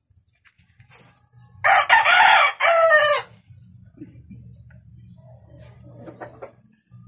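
A rooster crowing once, loud, starting about a second and a half in and lasting under two seconds.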